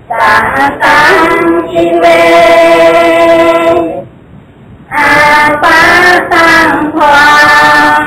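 A voice singing long, held notes in two phrases, with a pause of about a second between them.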